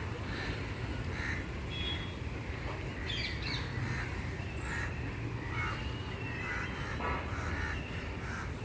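Birds calling repeatedly in short calls, over a steady low background rumble.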